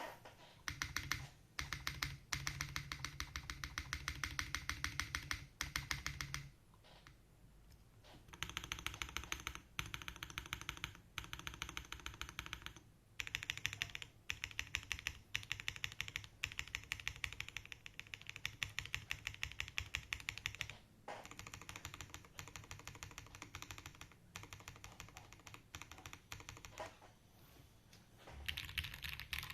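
Space65 R3 mechanical keyboard being typed on in fast bursts of clacking keystrokes, with short pauses between runs, as a sound test of its stabilizers.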